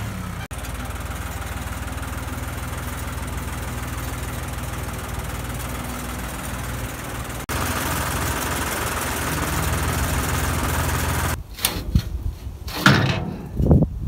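Old Ford farm tractor's engine running steadily. Near the end it gives way to several sharp clunks and knocks.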